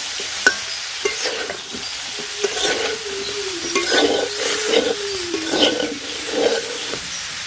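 Cauliflower florets frying in hot oil in a pan, sizzling steadily, with a spatula stirring and scraping against the pan in short strokes.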